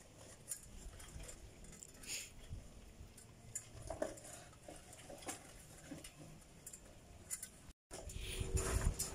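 Dogs eating from food bowls: faint, scattered clicks and chewing noises from mouths and bowls. About eight seconds in, the sound cuts out for a moment and comes back with a louder low rumble.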